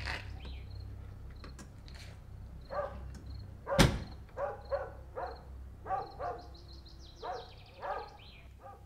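A dog barking repeatedly in the distance, with a string of barks through the second half, over a steady low hum. One sharp loud thunk about four seconds in, a door shutting.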